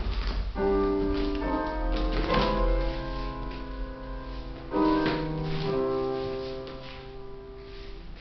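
Piano music, with notes and chords struck and left to ring, growing softer near the end.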